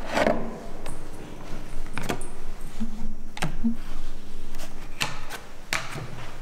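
Printed cards being handled: pulled from a wooden card box and set down on a table, a string of sharp taps, clicks and slides.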